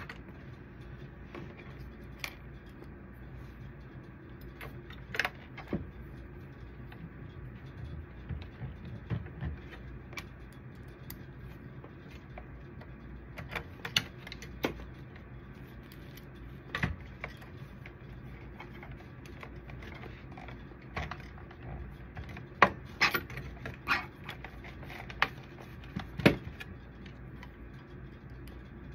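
Scattered clicks and knocks of a plastic photoconductor drum cartridge being handled and worked on with a small metal tool, with a cluster of louder clicks near the end. Over a steady low hum.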